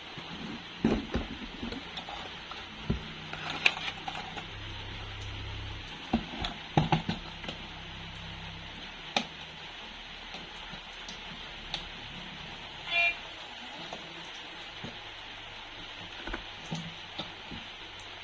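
Clicks and knocks of plastic toy vehicles being handled, over a low steady hum through the first half. A short electronic beep sounds about two-thirds of the way in.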